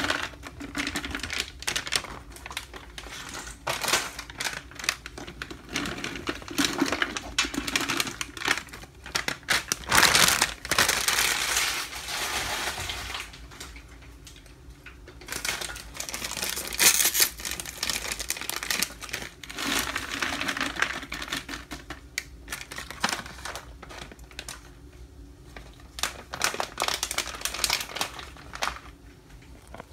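Plastic snack packets crinkling as mixed nuts are tipped from them into a large plastic jar, the nuts falling in with many small clicks. It comes in several pours with pauses between.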